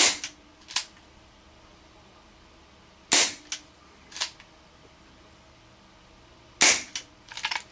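HFC HG132 gas-powered airsoft revolver firing three single shots about three seconds apart, each a sharp pop followed by a couple of fainter clicks.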